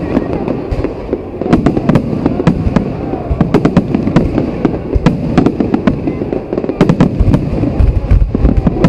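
Aerial fireworks display: shells bursting and crackling, many sharp bangs in quick succession, with a short lull about a second in.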